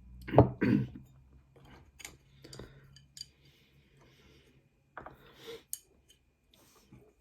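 Close-miked eating sounds: a bowl of egg noodles being eaten, with two loud bursts about half a second in, then scattered light clicks of cutlery against the dish and soft chewing, with another cluster of clicks about five seconds in.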